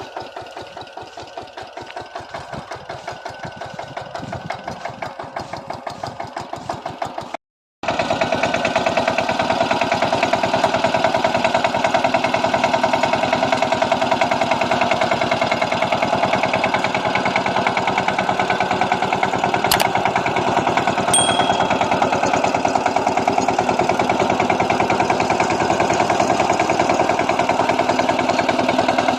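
Kamco power tiller's single-cylinder diesel engine running steadily with an even chugging pulse while ploughing. The sound cuts out briefly about seven seconds in and comes back louder.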